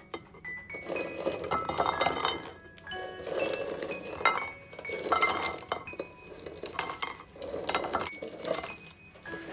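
Glassware and dishes clinking in repeated handling, with short ringing tones, over soft background music.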